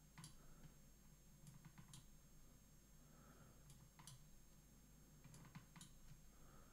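Faint computer mouse clicks, a dozen or so at irregular intervals, against near-silent room tone.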